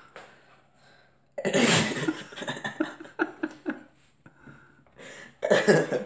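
A dog sneezing: a sudden sharp sneeze about a second and a half in, a run of short sneezes and snuffles after it, then another loud sneeze near the end. The sneezes come on cue when its nose is touched.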